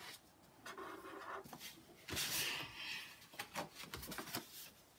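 Pen drawing on paper: faint irregular scratching strokes as small egg shapes are filled in, with a few short sharp taps near the end.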